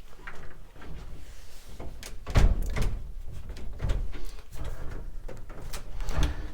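Key being turned in the old lock of an antique pine wardrobe door, with a string of clicks, rattles and wooden knocks as the door is worked; the lock is sticking a bit.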